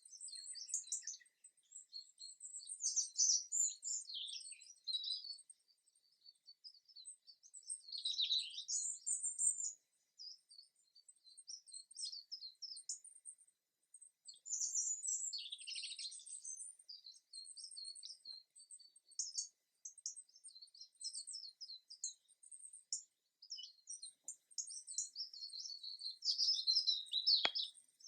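Songbirds chirping and singing in overlapping high-pitched phrases and trills, with short pauses between bursts.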